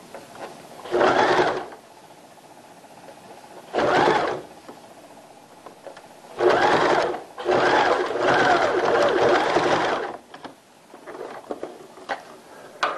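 Home electric sewing machine stitching in four short runs, the last about two and a half seconds long, as a cuff is sewn onto a baby's trouser leg. A few light clicks follow near the end.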